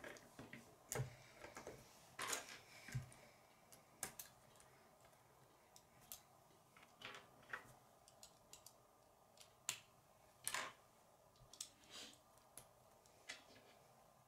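Plastic K'nex rods and connectors clicking and tapping as they are handled and pushed together, in faint, irregularly spaced clicks.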